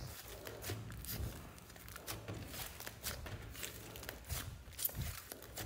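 Hands squeezing and pressing a large mound of thick pink slime, giving irregular soft crackles, clicks and squishes.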